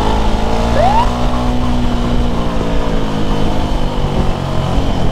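Motorcycle engines running while riding along, heard from the rider's seat, with a short rising engine note about a second in.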